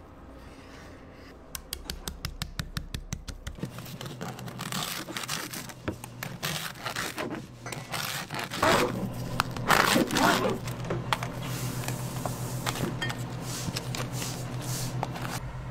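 Knife sawing through a crusty baguette: rapid scraping and crackling of the crust, loudest a little past the middle.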